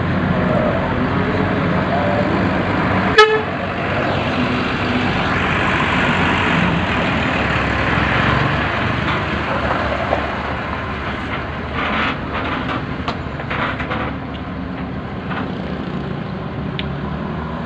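Tour bus engine running steadily, with one short, sharp horn toot about three seconds in.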